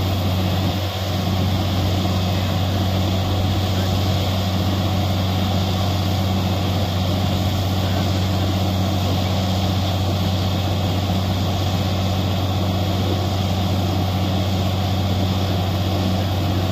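Truck-mounted borewell drilling rig running steadily: a low engine and air-compressor drone, with the hiss of air blowing cuttings out of the borehole.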